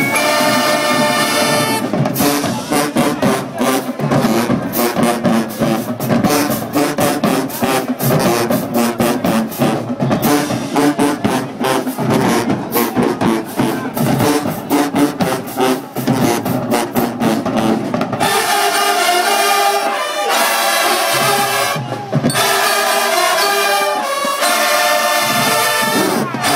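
Marching band in the stands playing loud brass with drumline percussion. Horn chords open, the drums come in about two seconds in and beat rapidly under the brass, then drop out near the two-thirds mark, leaving the horns holding chords with a brief break.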